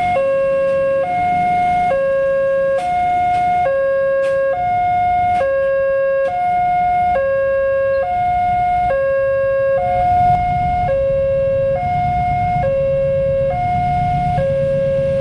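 Railway level-crossing warning alarm from a pole-mounted loudspeaker, alternating a high and a low tone about once a second each, signalling that a train is approaching and the barrier is down. A low rumble of waiting motorcycle and vehicle engines grows about halfway through.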